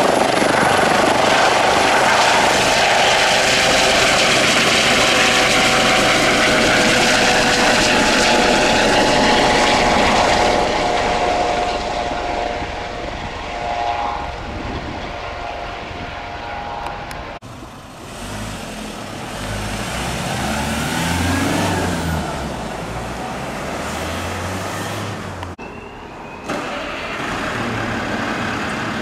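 Air ambulance helicopter with a fenestron tail rotor lifting off and climbing away: steady turbine whine and rotor noise with several steady tones, loud at first and fading after about ten seconds. Near the end, after a cut, a fire engine's diesel engine is idling.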